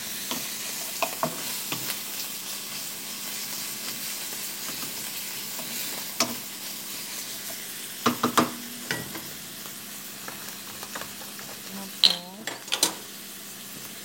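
Sliced mushrooms sizzling in hot oil in a frying pan while being stirred, with a few sharp knocks and scrapes of the utensil against the pan, a cluster about 8 seconds in and another about 12 seconds in.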